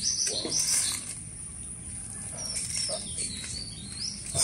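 Aluminium foil crinkling as hands pull open a foil-wrapped fish parcel, with a small bird chirping in quick repeated notes in the background, first near the start and again in the second half.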